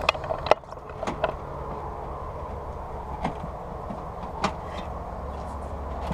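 A few sharp clicks and knocks of parts and tools being handled in a car's engine bay, the loudest about half a second in, over a steady low hum.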